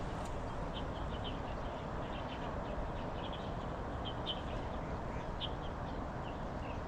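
Small birds chirping in short, scattered calls over a steady rushing background noise.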